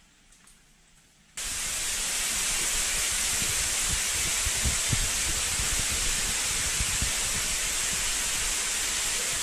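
Water spraying and falling down a rock mine shaft: a steady, loud rushing hiss that starts abruptly about a second and a half in, with low buffeting thumps on the microphone underneath.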